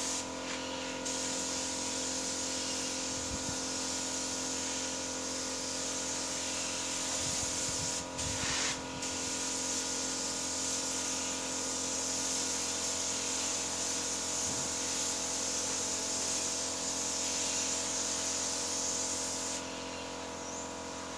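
Compressed-air spray gun hissing steadily as clear coat is sprayed onto a car bumper. The trigger is let off briefly twice about eight seconds in, and the spraying stops near the end, leaving a steady hum underneath.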